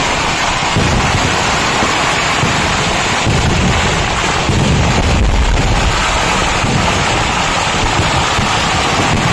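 Traditional Kerala temple fireworks barrage: many overlapping blasts merging into one continuous loud rumble, with no gap between them.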